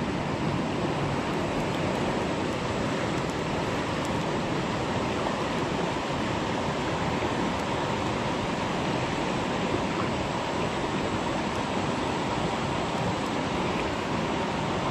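Fast-flowing river water rushing steadily past the bank.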